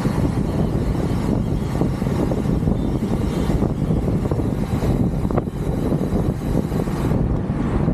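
Wind buffeting the microphone while riding: a steady, dense low rumble.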